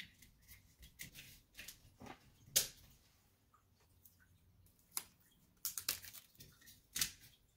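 Adhesive picture-hanging strips being unwrapped and their backings peeled: scattered small rustles, crinkles and clicks. One sharper click comes about two and a half seconds in, and a close run of them comes near the end.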